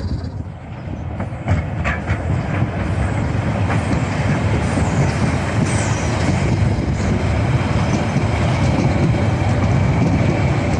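Harz narrow-gauge steam train rolling on the rails, a dense rumble that grows steadily louder as it draws near.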